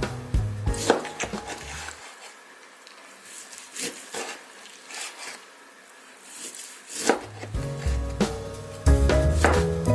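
Background music with scattered sharp knocks of a knife on a wooden cutting board. The music's bass drops out for a few seconds in the middle, leaving mainly the knife strokes, then comes back.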